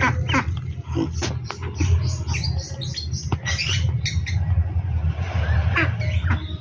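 Ducklings peeping: many short, high calls overlapping continually, over a steady low hum.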